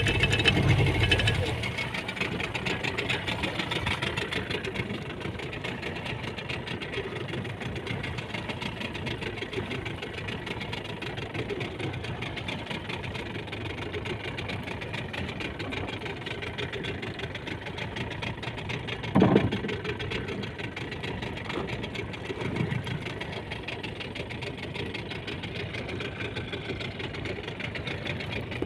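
Fishing boat's engine idling steadily, with a single brief thump about two-thirds of the way through.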